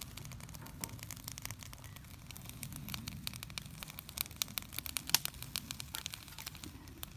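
Wood campfire crackling, with irregular sharp pops and snaps over a low steady rush of burning.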